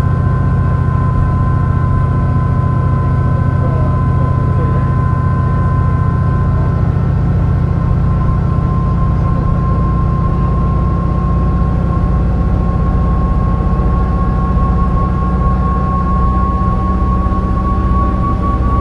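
MAN NL202 CNG bus engine running under way with a low rumble, with a steady whine from the ZF five-speed automatic gearbox that rises slowly in pitch near the end as the bus picks up speed.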